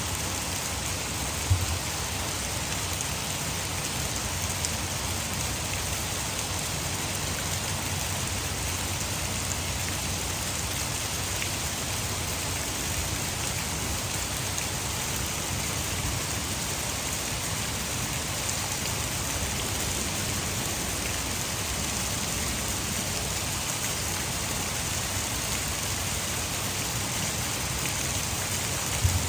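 Heavy rain falling steadily, a continuous hiss mixed with the rush of water falling over a nearby hydroelectric dam. Two brief low thumps, one about a second and a half in and one near the end.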